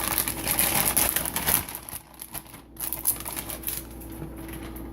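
Crinkling plastic packaging and light clattering of parts being handled, busy for about two seconds and then sparser and quieter.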